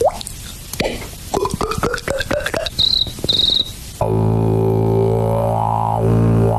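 Vocal sound effects made with the mouth: a quick run of clicks and pops with short rising squeaks and a high chirping trill, then from about four seconds a loud, steady low droning buzz whose overtones sweep like a changing vowel.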